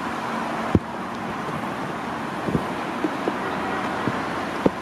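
Steady street traffic noise, with a few soft low knocks.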